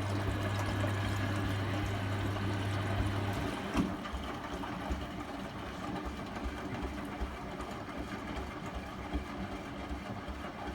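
Hotpoint washing machine mid-wash: a steady hum with water running in, which cuts off about three and a half seconds in, followed by a knock. After that comes the irregular churning of the drum turning the wet load.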